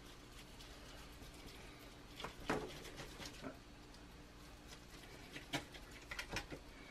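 Knife cutting a cooked ribeye roast on a cutting board: a few faint taps and scrapes, bunched about two to three seconds in and again near the end, over a low steady hum.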